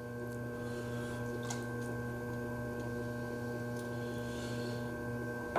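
Electric potter's wheel motor humming steadily as the wheel turns, with a few faint ticks and soft rubbing as a sponge on a stick mops water out of the pot.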